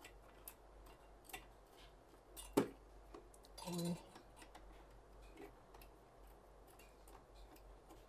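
Faint, scattered clicks and ticks of screws being turned down a little at a time, side to side in a cross pattern, to mount a Cooler Master MasterAir MA410P CPU cooler, with one sharper click about two and a half seconds in.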